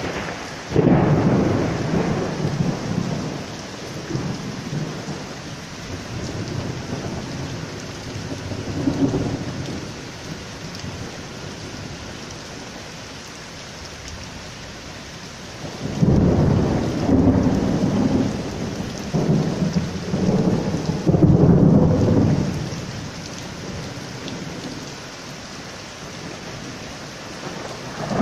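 Heavy downpour hissing steadily on paving, with rolling thunder: a rumble starts about a second in, and a longer, louder roll comes past the middle.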